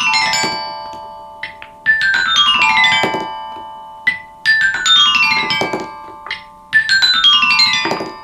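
Balls rolling down a xylophone marble run, striking the bars in quick runs of ringing notes that step down in pitch. A run is still ringing at the start and three more begin about two, four and a half, and seven seconds in, each run over in about a second and left to ring and fade.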